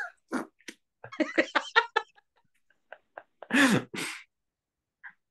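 Two people laughing over a video call: short broken bursts of laughter, then two louder, breathy laughs about three and a half seconds in.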